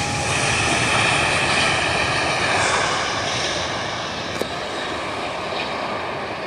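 Airbus A380's four jet engines running loud as it rolls along the runway after touchdown: a steady rush with a high whine over a deep rumble, easing slightly toward the end.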